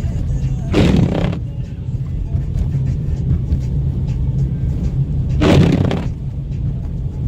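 Steady low road rumble inside a car driving on a snowy road, with two loud whooshes about four and a half seconds apart.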